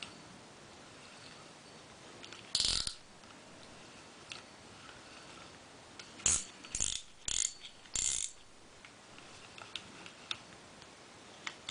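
Abu Garcia six-bearing spinning reel being worked by hand: the rotor spins with faint ticking. There is one short burst of mechanical whirring about two and a half seconds in and four more in quick succession between six and eight seconds in.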